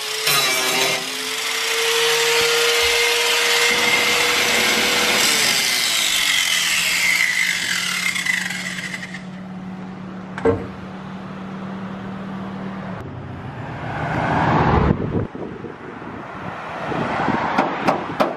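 Angle grinder grinding through steel rivets on a bus radiator fan's shroud ring. Its whine falls away as the disc spins down about six to eight seconds in, and quieter, irregular mechanical noise follows.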